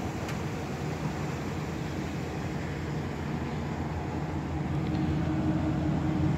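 Engine idling steadily: an even low hum that grows a little louder near the end.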